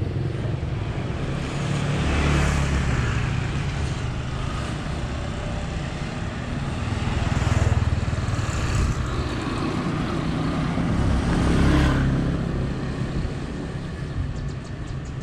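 Street traffic of motor scooters and cars passing by, swelling and fading about three times over a steady low rumble.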